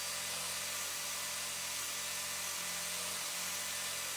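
Cordless drill spinning a wire wheel brush against a steel block, giving a steady whirring hiss as the bristles scrub the metal surface clean.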